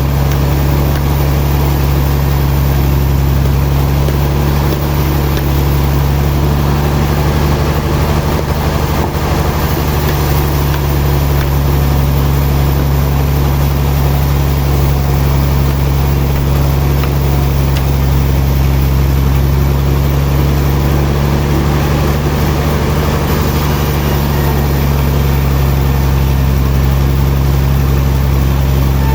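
Heavy sawmill machinery running steadily: a deep, constant engine-like hum with a wash of mechanical noise over it, without clear separate cuts or impacts.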